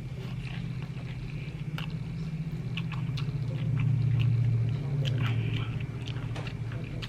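Close-up chewing and biting of crispy fried chicken and noodles, with scattered crunchy crackles. A low steady hum runs underneath and grows louder about four seconds in.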